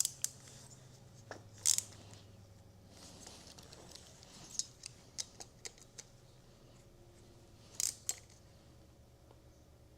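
Scattered light metallic clicks and a brief scrape from a 4 mm hex key working the screws that hold the exhaust header on an RC airplane engine. A run of small ticks comes in the middle, and a louder pair near the end.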